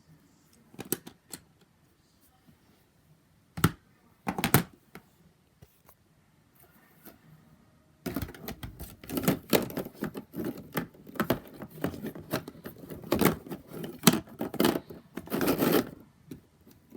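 Small fidget toys being handled and put into a bin: a few separate clicks and knocks, then about eight seconds of dense clattering and rattling.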